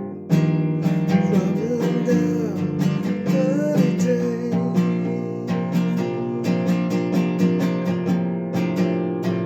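Acoustic guitar strummed in a steady rhythm, an instrumental passage of a song.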